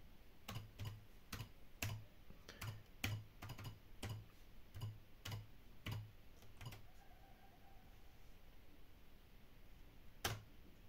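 Keystrokes on a computer keyboard: about a dozen separate key presses over some six seconds as a command is typed, then a pause and a single louder keystroke near the end that enters it.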